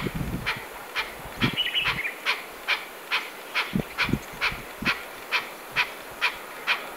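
Chukar partridge calling: a steady series of short, sharp notes about two a second, with a brief higher twitter about one and a half seconds in and a few soft low thuds.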